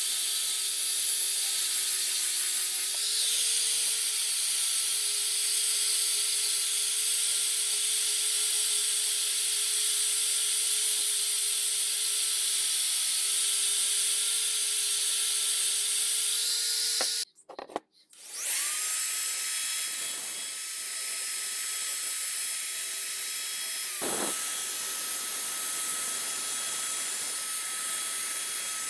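Angle grinder with a sanding disc running steadily against a steel hatchet head, a high whine over a gritty hiss; it cuts off abruptly about two-thirds through. An electric drill then runs a bit inside the hatchet's eye, a slightly quieter steady whine that dips briefly in speed a little later.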